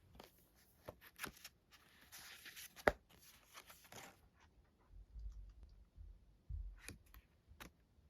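Plastic wrapping crinkling and tearing as a book is unwrapped, with scattered small clicks and one sharp tap about three seconds in. Low handling bumps follow near the end.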